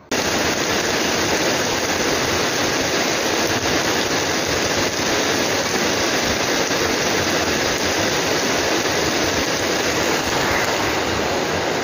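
Heavy rain falling on paving stones: a loud, steady hiss that starts suddenly and keeps on without a break.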